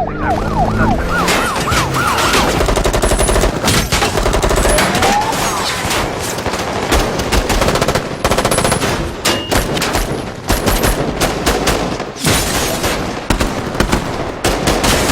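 Heavy automatic gunfire in a shootout, with shots following one another in dense bursts. A police siren yelps in rapid up-and-down sweeps for the first second or so, then is drowned out by the shooting.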